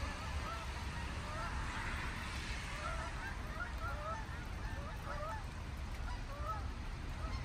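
A flock of geese flying overhead, honking: many short calls overlapping one another without a break.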